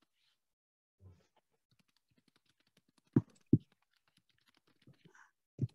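Faint, irregular clicking like typing on a computer keyboard, with two short, louder thumps about three seconds in.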